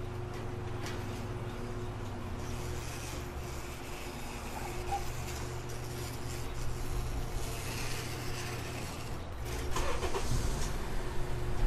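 A car engine running steadily with a low hum. Near the end there is louder rustling with a few knocks.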